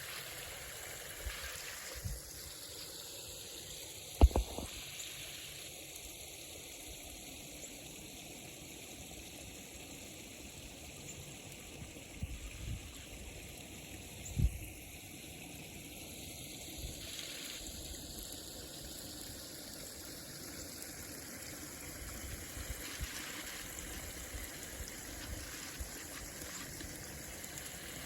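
Rainwater runoff flowing and trickling steadily. There is a sharp low thump about four seconds in and a softer one about ten seconds later.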